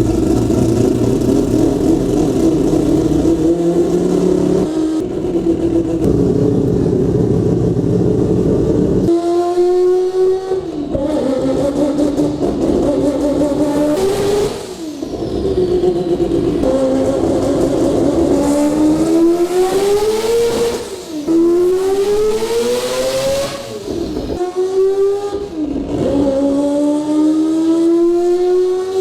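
Mazda RX-7's turbocharged rotary engine running hard on a dyno, loud and steady at first, then climbing in pitch again and again with a sudden drop at each upshift.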